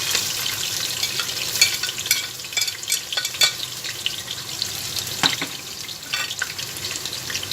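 Onions sizzling in hot oil in a pot, the hiss starting suddenly as they go in, with a spoon scraping and clicking against the pot as they are stirred.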